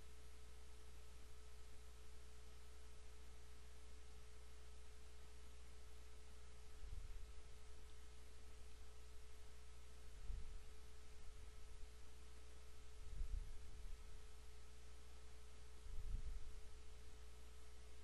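Faint steady electrical hum from the recording setup, with a thin steady tone and low mains-like hum over light hiss. Four soft, low thumps occur about three seconds apart.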